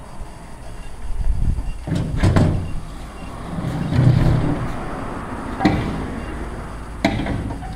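A long wooden plank being slid and scraped over the ground and trailer deck by a nose wheel, with several sharp wooden knocks as it is set in place.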